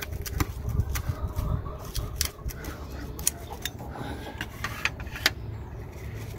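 Pizza cutter wheel rolling through a thin pizza crust on a metal pizza pan, with crunching and scraping clicks over the first two seconds or so. The cook judges by this sound that the crust is not crisp enough and needed a few more minutes. A sharper click a little after five seconds as the cutter is set down on the pan.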